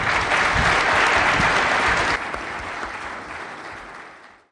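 Audience applauding: a loud, even clapping for about two seconds, then softer, fading out near the end.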